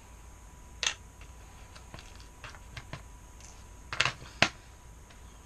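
Irregular clicks and knocks from objects being handled, with a louder knock about a second in and two louder knocks about four seconds in.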